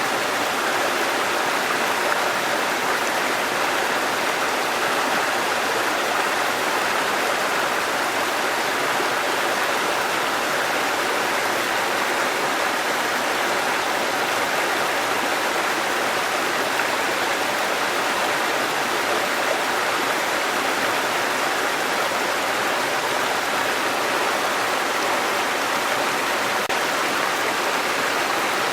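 Waterfall and running stream water rushing steadily, a constant even hiss with no breaks.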